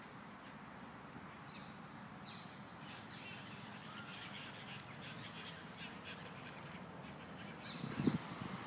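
Waterbirds calling faintly, a scatter of short calls over the middle few seconds, with a brief thump near the end.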